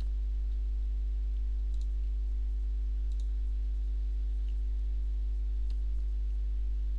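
Steady low electrical mains hum with a stack of evenly spaced overtones, with a few faint computer-mouse clicks about two, three and six seconds in.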